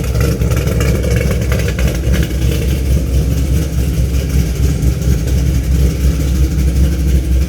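Chevrolet Camaro's engine running steadily and loudly at idle.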